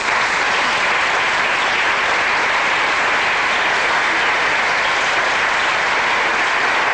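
Audience applauding, a dense, steady clapping that takes over as the speech stops and holds at an even level.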